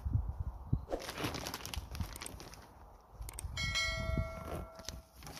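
Rustling and handling of a plastic mesh greenhouse cover, with a low rumble. About three and a half seconds in, a bell-like chime rings out suddenly and fades over about a second and a half: the notification-bell sound effect of an on-screen subscribe animation.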